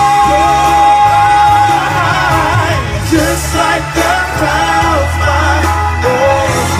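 R&B pop ballad with a solo voice: one high note held for about two seconds, then quick, wavering vocal runs over bass and backing accompaniment.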